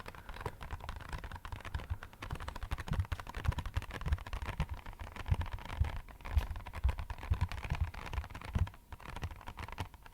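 Fingertips tapping rapidly on an empty box: a dense patter of light, quick taps with soft low thuds mixed in. It almost sounds a bit like rainfall.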